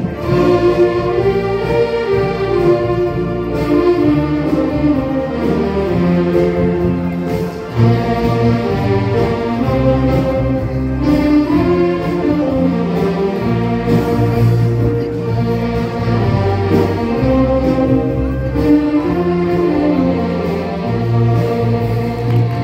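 Instrumental music playing continuously: a sustained melody over a steady bass line.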